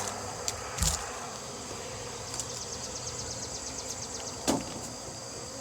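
Steady high-pitched insect chorus of crickets, with a fast run of chirps in the middle. Two sharp knocks cut through it, one about a second in and a louder one about four and a half seconds in.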